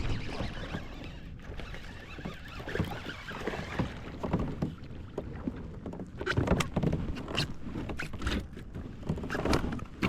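Handling noises in a fishing kayak: irregular knocks, clicks and rustles of gear and hands moving against the hull.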